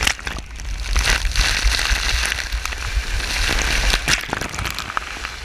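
Rushing water and the rumble of a rider sliding fast down an enclosed water-slide tube, heard close on a body-worn camera and full of knocks and buffeting. About four seconds in it breaks into a burst of splashing spray as the rider hits the water at the runout.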